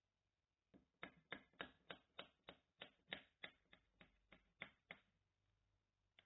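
Knife sawing back and forth through a barley bread topped with sliced almonds and walnuts, about three sharp strokes a second, stopping about five seconds in, with a few more strokes at the very end.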